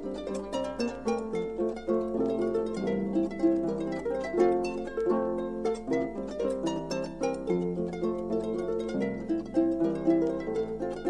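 Solo harp playing a cheerful Alpine folk dance tune in quick plucked notes and chords, reproduced from a 1961 vinyl 45 rpm record, with a faint steady low hum underneath.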